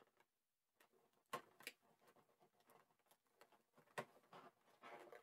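Mostly quiet, with a few faint clicks and light rustling from taped packaging being separated by hand.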